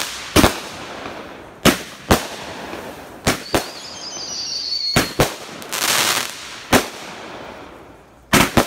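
Aerial fireworks going off: about ten sharp bangs at irregular spacing, some in quick pairs. A high whistle comes about four seconds in, and a burst of crackling follows about six seconds in.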